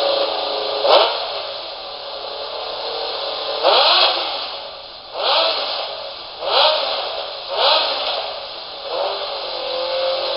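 Kawasaki ZX-11's inline-four engine idling and revved in about six short throttle blips, each rising and then falling back to idle, while it is being warmed up. The sound is thin, with little bass.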